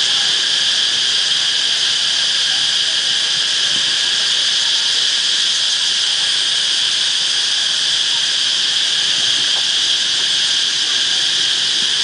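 A huge chorus of cicadas shrilling in the trees: a loud, unbroken high-pitched buzz, deafening and steady throughout, easily mistaken for microphone feedback.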